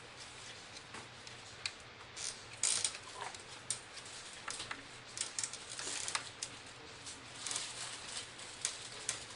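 Irregular clicks, taps and short scrapes of small metal and plastic parts being handled as a laptop heatsink is fitted back onto the motherboard.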